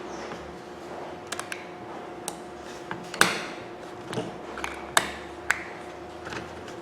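Hard tool-housing parts being handled and fitted together: a scatter of sharp clicks and knocks, the loudest about three seconds in, over a steady low hum.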